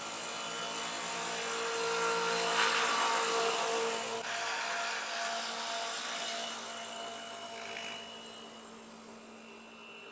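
Electric 700-size RC scale Bell 222 model helicopter flying past, its rotor and electric motor running with a steady whine. It is loudest in the first few seconds, then fades as it moves away.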